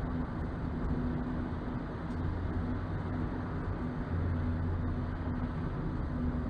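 Steady road noise heard inside a moving car on a freeway: tyres rolling on the pavement with a low engine drone and hum.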